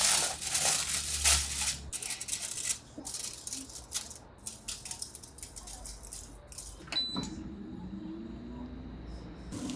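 Clattering and rustling of objects being handled, then scattered clicks. About seven seconds in comes a click with a short high beep, and a steady low hum starts after it.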